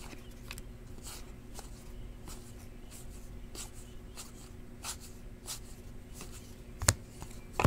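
Cardboard trading cards being flipped one at a time through a handheld stack: faint swishes and ticks about once or twice a second, with two sharper clicks near the end. A steady low hum runs underneath.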